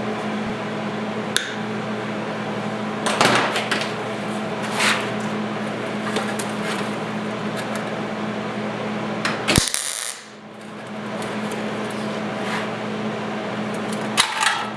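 Steady electric hum of workshop machinery, with scattered clanks and clatters of tools being handled. After a sharp click about ten seconds in, the hum drops away for about a second and then builds back up.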